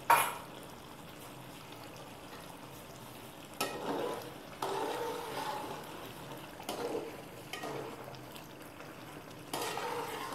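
A sharp knock of a steel spoon against the cooking pot, then the spoon stirring thick creamy chicken gravy with a lump of butter in it, in several scraping strokes.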